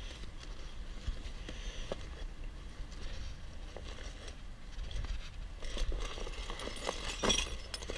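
Grey nylon bag rustling and scraping on cardboard as it is picked up and handled, with faint clicks of the metal mounting hardware inside that grow busier toward the end.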